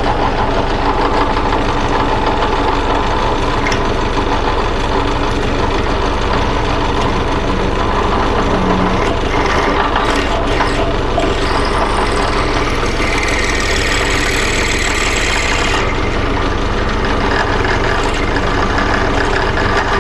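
A drill press motor runs steadily while a 3/16-inch twist drill bores through a small brass tube held in a vise. About two-thirds of the way through, a higher-pitched cutting noise joins in for about three seconds, then cuts off suddenly.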